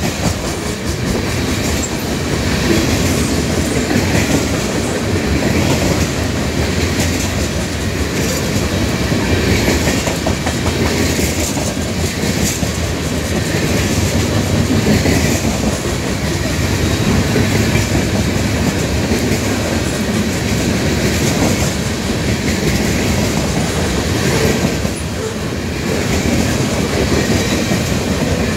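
Freight cars of a CN manifest train rolling past at speed: a steady, loud rumble of steel wheels on the rails with a clickety-clack rhythm.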